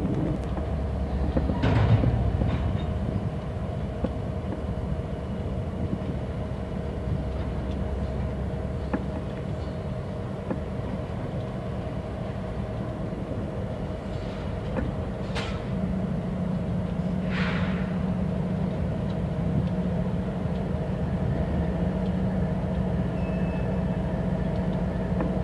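Canadian Pacific freight train moving slowly through a rail yard, with diesel locomotives running: a steady low rumble and hum. Three brief sharp high-pitched noises stand out, and the engine hum gets stronger about two-thirds of the way through.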